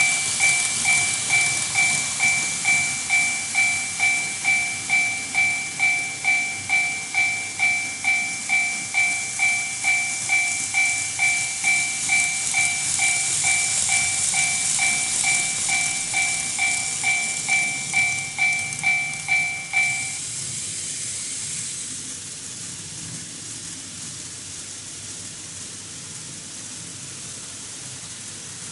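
Model level crossing's electronic warning bell ringing at about two dings a second, over the hiss and clicking of model train wheels on the track. The bell stops about two-thirds of the way through, leaving the quieter rolling noise of a train running.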